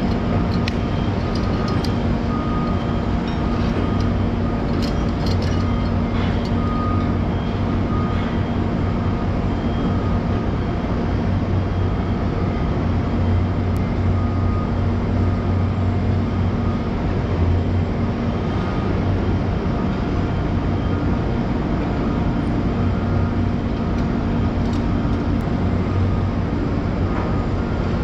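Steady drone of construction-site machinery, an engine running without let-up, with a low hum and a few faint scattered ticks over it.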